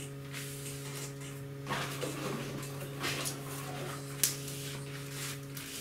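A laptop's taped cardboard box being handled: scattered short rustles and one sharp click a little after the middle, over a steady low hum.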